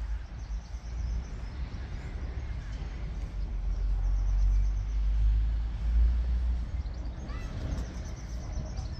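Wind rumbling on the microphone, loudest in the middle, with small birds chirping faintly at the start and again near the end.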